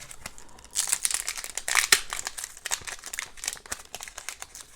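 Foil wrapper of a trading card pack crinkling as it is handled and opened. It starts under a second in and goes on as a dense, crackly rustle.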